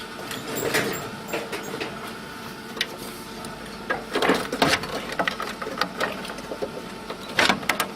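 Clicks and knocks of hand tools and parts being handled, with snips of side cutters cutting a cable tie, over a steady machine hum.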